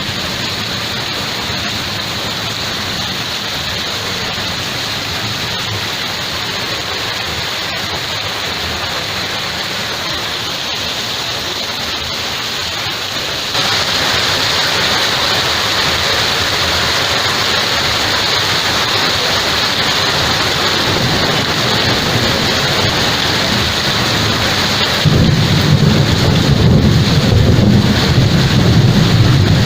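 Heavy rain falling steadily, growing louder about halfway through, with a low rumble of thunder coming in for the last few seconds.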